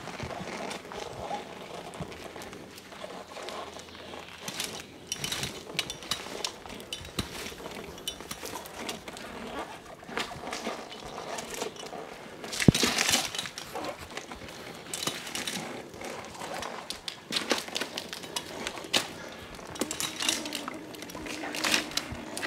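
Irregular rustling and scraping with scattered clicks and cracks from branches and climbing gear as a person climbs a tree on a rope, with one sharp crack about halfway through.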